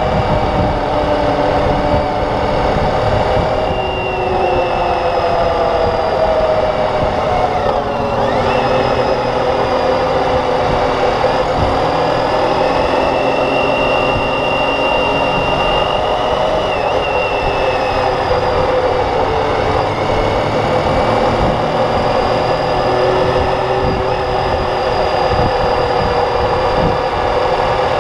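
Motorcycle engine running under way, its pitch drifting slowly down and back up as road speed changes, over a steady low rumble.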